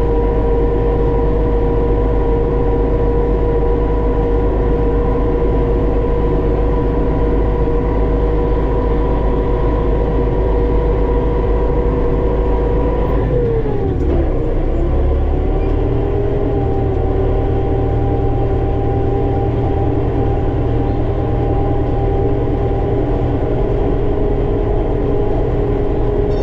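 Armatrac 1104 Lux tractor's diesel engine running steadily under load; about halfway through, its pitch drops and settles at a lower, steady speed.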